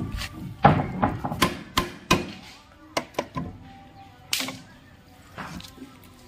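Hammer striking the wooden shuttering boards of a roof-slab formwork: a run of sharp knocks, closest together in the first two seconds, then a few more spaced out.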